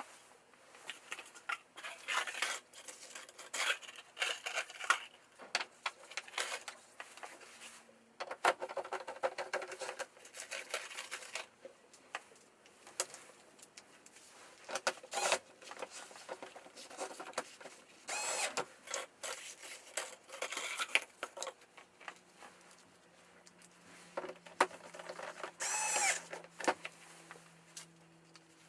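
Irregular clinks, taps and rattles of tools and metal parts being handled, one of them ringing out briefly near the end. A faint steady hum comes in about three-quarters of the way through.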